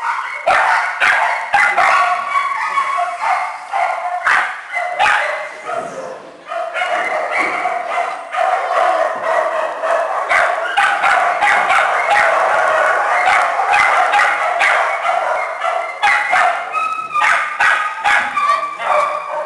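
A group of small dogs and puppies whining, yipping and barking over one another as they jump up at a person. Their high-pitched calls overlap into an unbroken chorus.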